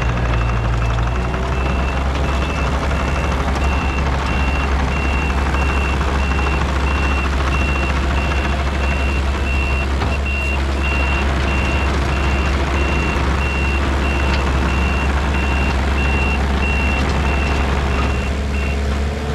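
Kubota KX080-3 excavator's diesel engine running steadily as the machine tracks across gravel, its travel alarm sounding a steady run of high-pitched beeps that stops near the end.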